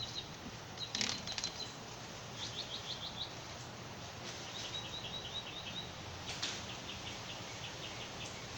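Small bird chirping in quick runs of short, high notes, several runs a second or so apart, over faint steady background noise, with a couple of brief knocks.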